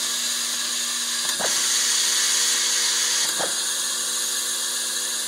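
Vibratory bowl of a DTI Model 5000 automatic screw feeder running: a steady electric hum under a dense metallic hiss of screws rattling in the bowl, with two brief swishes about two seconds apart.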